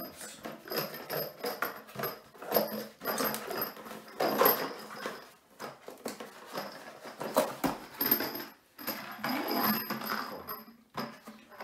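Small cardboard box being handled and opened by gloved hands: irregular rustling, scraping and tapping of cardboard, mixed with crinkling plastic wrapping.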